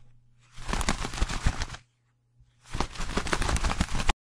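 Butterfly wing-flutter sound effect: two bursts of rapid crackling clicks, each about a second and a half long, separated by silence.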